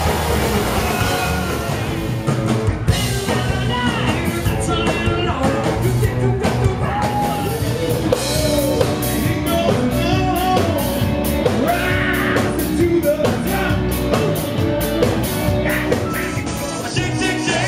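Live rock band playing loud dance music, with drums, electric guitar and a singing voice.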